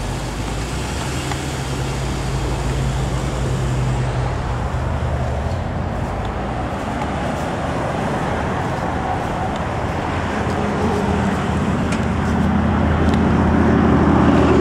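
Road traffic on a highway: cars and trucks driving past. An SUV's engine hums steadily as it pulls away over the first few seconds, and another engine draws closer and grows louder near the end.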